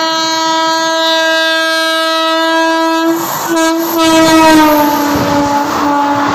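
Horn of an oncoming WAP-7 electric locomotive sounding one long blast, broken briefly about three seconds in, its pitch sliding down as the locomotive passes close by. Near the end the horn stops and the rush and clatter of its coaches going past take over.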